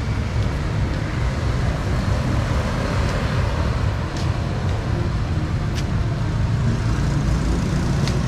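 Street traffic noise: a steady rumble of passing road vehicles, with a few faint clicks.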